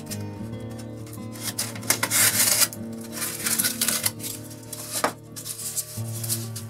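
Hand sanding of a foam plug: scratchy rubbing strokes, loudest for about a second from a second and a half in, over quiet guitar instrumental music, with a single sharp knock about five seconds in.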